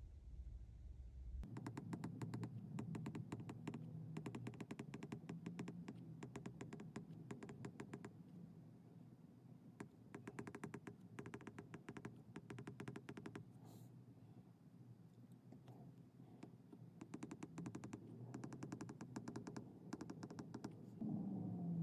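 Stylus tip tapping and scratching on an iPad's glass screen while handwriting, in quick runs of small clicks that stop for a few seconds midway.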